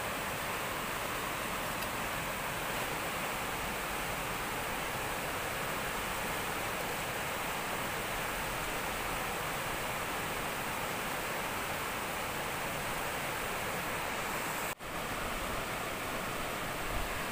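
Steady rush of flowing river water, an even hiss-like roar with no distinct events, broken only by a momentary dropout about fifteen seconds in.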